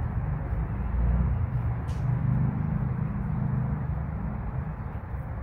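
A steady low rumble in the background, with one light click about two seconds in as the plastic upper fairing of the motorcycle is lifted off.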